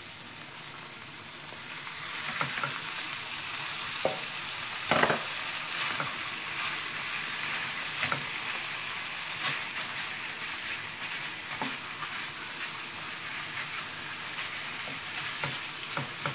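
Raw chicken pieces sizzling in a hot oiled wok with carrots and onions, the sizzle growing louder about two seconds in as the meat goes into the pan. Scattered knocks and scrapes of a wooden spatula stirring against the pan, the loudest about five seconds in.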